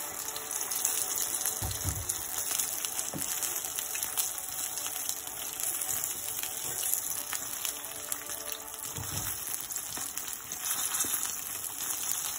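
Breaded chicken wings sizzling and crackling in hot frying oil, a steady hiss with a few low knocks as a slotted spatula turns the pieces in the pan.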